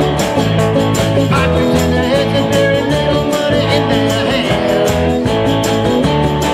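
Live rock band playing electric and acoustic guitars over bass guitar and drums that keep a steady beat.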